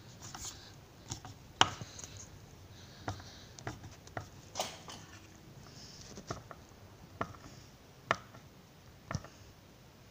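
Irregular light clicks and taps of a screwdriver working the lid removal screws on an EDC16 ECU's aluminium case, a little more pressure at a time, about one tap a second.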